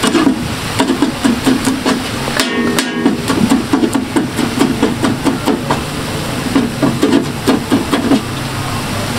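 Flat steel cleaver chopping green chillies on a large iron tawa: a quick, even rhythm of ringing metal-on-metal strikes, a few a second.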